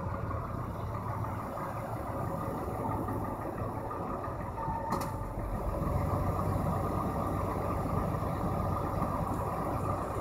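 GMC Safari van's engine running at low revs as the van rolls slowly forward, a little louder from about halfway through. A short click about five seconds in.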